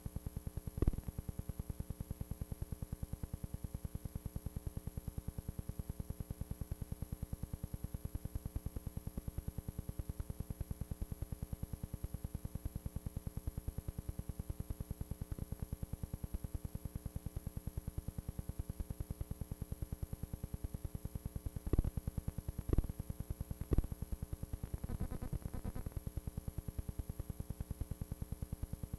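Steady electrical buzz and hum with hiss, pulsing rapidly and evenly, from an old analog videotape soundtrack. A sharp click about a second in, and three more a second apart near the end.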